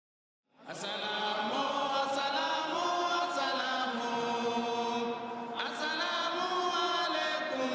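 A large crowd of voices chanting in unison, starting about half a second in after a moment of silence.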